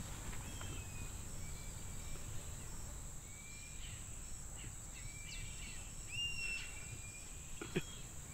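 Outdoor field ambience: a steady high-pitched insect drone with a series of short whistled bird chirps scattered through, over a low rumble. There is a brief soft tap near the end.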